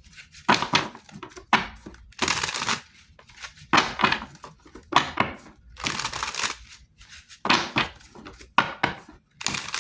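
A tarot deck being shuffled and handled by hand: a string of irregular papery crackling and rustling strokes, each under a second.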